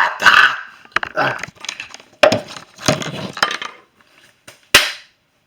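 Irregular clattering and sharp knocks, a loud one at the start and another near the end.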